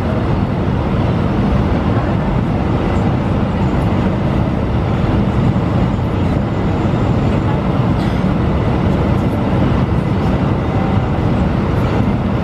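Steady cabin noise of an Airbus A320 descending on approach, heard from inside at a window seat over the wing: the drone of the engines and the rush of air, strongest in the low range and even throughout.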